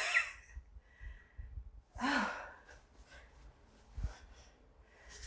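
A woman's breathy sighs as she relaxes after a chiropractic adjustment: a breath out trailing off at the start and another voiced sigh about two seconds in. A soft low thump follows near four seconds.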